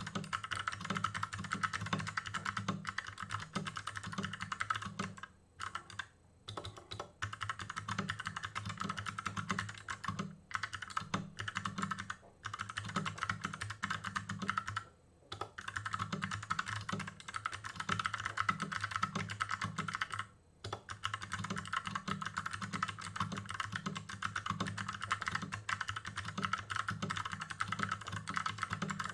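Fast touch typing on a custom-built 60% mechanical keyboard with clicky Kailh Box Pink switches on a steel plate in an aluminium case: a rapid, steady stream of keystrokes broken by a few brief pauses.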